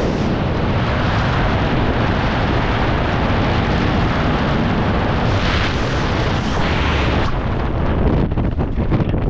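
Wind noise from freefall air rushing over the camera microphone: a loud, steady rush that turns choppy and fluttering in the last couple of seconds.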